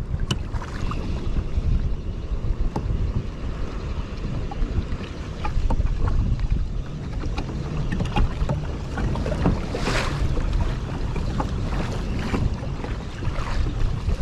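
Wind buffeting the microphone over water lapping and slapping against the kayak's hull, with a brief louder rush about ten seconds in.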